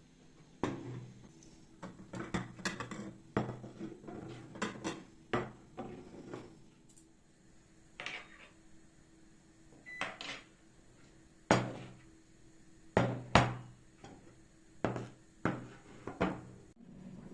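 Irregular knocks and clunks of hard objects being handled, some coming in quick clusters and others on their own, each with a short low ring after it.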